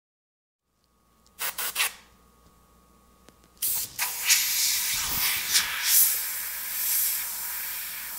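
Airbrush spraying: a few short bursts about one and a half seconds in, then from about three and a half seconds in a continuous high hiss of air and paint spray that rises and falls a little in level.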